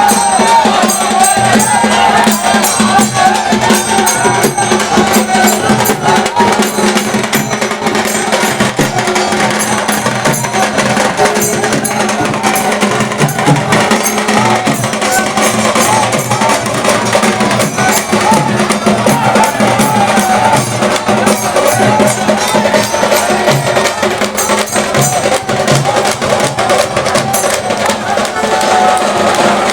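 Loud music with continuous rhythmic percussion.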